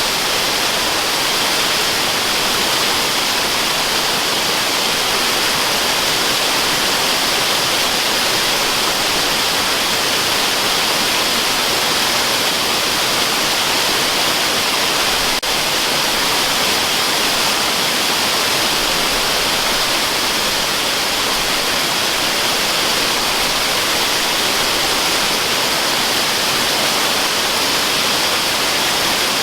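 Waterfall: steady rushing of falling water, an unbroken hiss weighted toward the high end.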